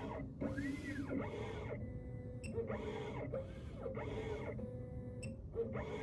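Xhorse Condor XC-Mini Plus key cutting machine running an automatic cut: its motors whine in repeated rising-and-falling glides, about one a second, as the cutter head moves into position over the key blank, over a steady motor tone.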